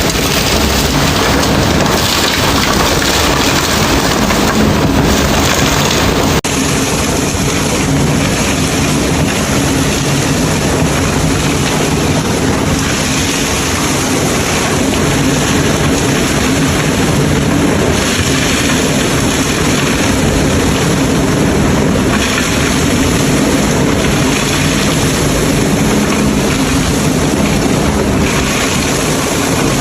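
Industrial vacuum cleaner running steadily: a loud rushing hiss of air over a low motor hum. About six seconds in the sound changes abruptly and loses some of its hiss.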